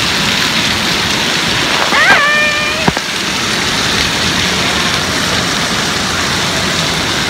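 Steady rush of water with the hollow din of an indoor water park pool. About two seconds in, a child's voice calls out once in a short held cry.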